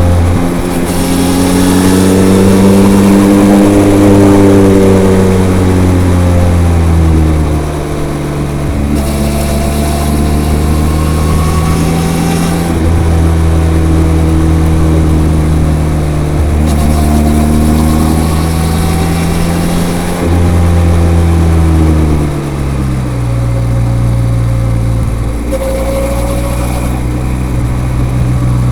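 Benelli TRK 502's parallel-twin engine through its stock, unmodified exhaust while riding, the engine note rising and falling as it accelerates, shifts gear and eases off, with a hiss of wind coming and going. Near the end it settles to a lower, steadier note.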